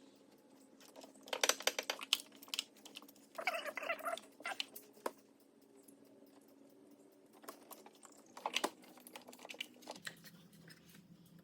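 Three short runs of rapid clicking from a ratchet wrench being worked while parts are refitted on the engine.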